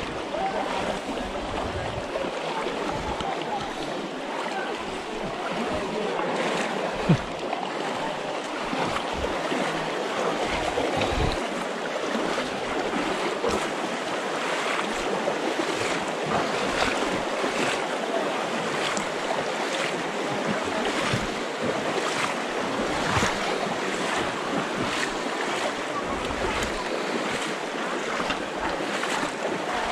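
Shallow river water rushing steadily. From about halfway through come regular splashes, roughly one a second, of feet wading through the river. There is a single sharp knock about a quarter of the way in.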